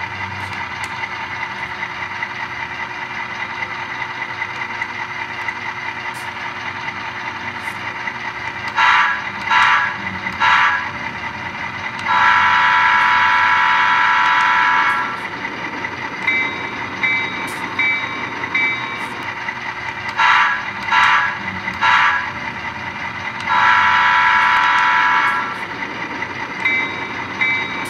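Digital sound effects from an HO-scale Bachmann diesel model locomotive's onboard speaker: a steady diesel engine sound, with several short horn toots, two long horn blasts, and runs of a ringing locomotive bell.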